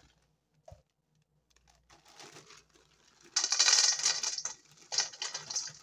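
Small Bunny Grahams crackers pouring from a plastic bag into an empty metal mixing bowl: a dense rattle of the pieces hitting the bowl, starting light about two seconds in and heaviest from about three and a half seconds in.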